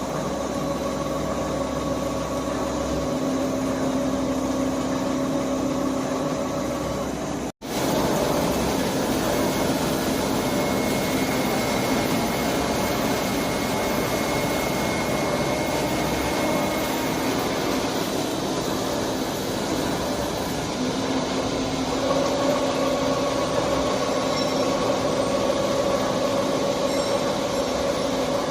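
Heavy-duty CNC lathe running a metal-turning cut: a steady machine noise with a hum of several tones, cut off for a split second about seven and a half seconds in. The hum fades in the middle and comes back strongly near the end.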